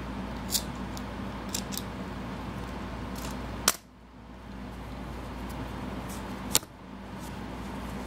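Two sharp clicks about three seconds apart, with a few fainter ticks before them, over a steady low hum and hiss. The background dips for a moment after each click.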